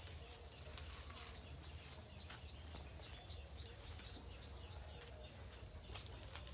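A bird giving a run of short, high, rising chirps, about four a second, that stops about two thirds of the way through, over a steady high whine and a low rumble of outdoor background.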